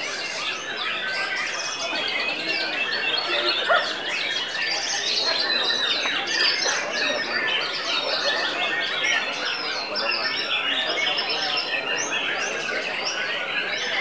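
Caged white-rumped shamas (murai batu) singing, many songs overlapping at once in a dense, unbroken tangle of rising and falling whistled phrases.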